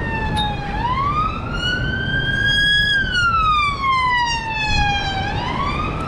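Emergency vehicle siren wailing, its pitch rising slowly for about two seconds, falling for about two, then climbing again near the end, over a steady rumble of gale wind on the microphone.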